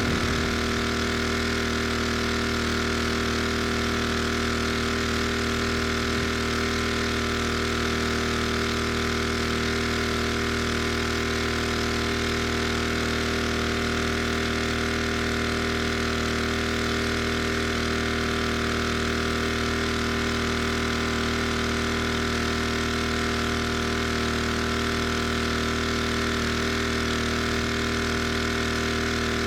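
Gas-engine pressure washer running steadily at a constant speed.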